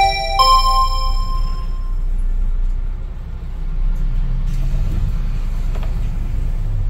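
A city bus driving, its engine and road noise a steady low rumble heard from the front of the vehicle. The last two notes of a rising electronic next-stop chime sound at the start and ring out within about two seconds.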